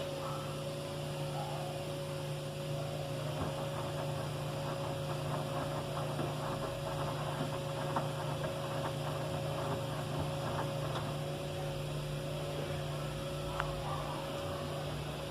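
Electrolux washing machine running: a steady motor hum with a faint, slightly wavering whine over it and scattered light ticks, with a couple of sharper clicks.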